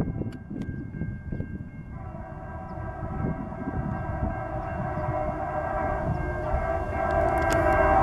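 Diesel freight locomotive's air horn sounding, starting about two seconds in and getting louder as the train approaches a grade crossing, over the low rumble of the train.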